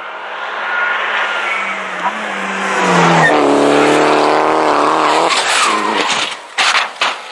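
Rally car engine approaching at high revs, its pitch climbing, then loud and steady as the car slides through a hairpin, cutting off about five seconds in as the driver lifts. A few sharp cracks follow near the end.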